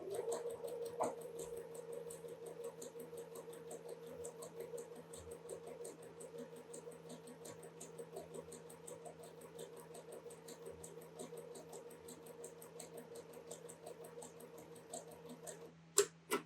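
Sewing machine stitching a seam at a steady speed: a constant motor hum with a rapid, even ticking of the needle. It stops abruptly near the end, followed by two sharp clicks.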